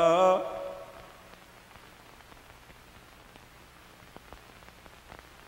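A man's last sung note and its musical accompaniment fade out about half a second in, leaving a faint hiss with a few soft clicks.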